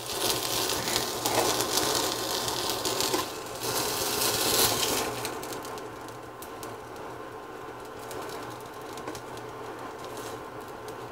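Spatula scraping and clicking against a nonstick skillet as chicken pieces are pushed onto a pita, over light sizzling in the pan. The scraping dies down about five seconds in, leaving a quieter sizzle and a low steady hum.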